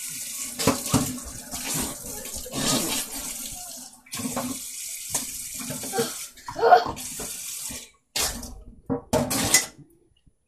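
Kitchen tap running into the sink, with water splashing in uneven spurts as she scoops it up to her mouth by hand. The running water cuts off about eight seconds in, and a few short splashes or gasps follow.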